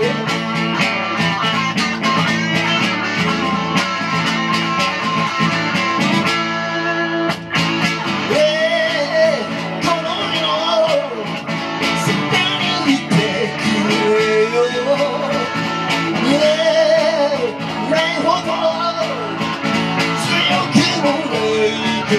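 A live band playing a song led by guitars. From about eight seconds in, a melodic lead line of rising and falling notes plays over the band.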